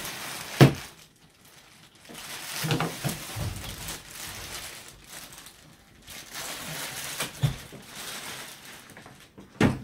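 Clear plastic packing bag rustling and crinkling as it is pulled off a rack server and bunched up. A sharp knock sounds just after the start and another near the end.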